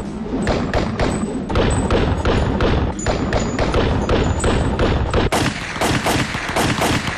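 Thompson submachine gun firing automatic, a rapid unbroken string of shots. A little past five seconds in, the gunfire becomes denser and brighter.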